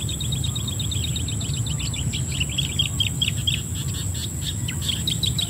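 Nature ambience of quick, high chirps, many to the second, fast and regular at first and then more scattered, over a steady high tone and a low rumble.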